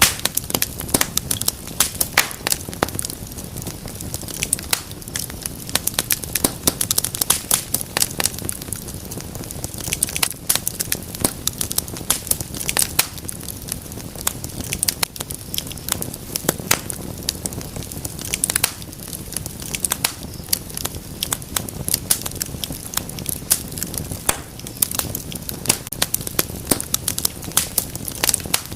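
Wood fire crackling: dense, irregular pops and snaps over a steady low rumble of burning logs.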